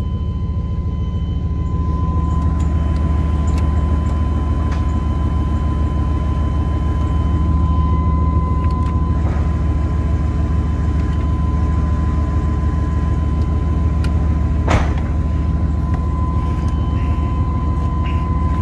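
Old GM pickup plow truck's engine idling steadily, heard from inside the cab, with a thin steady high-pitched whine over the low rumble. There is one sharp click about fifteen seconds in.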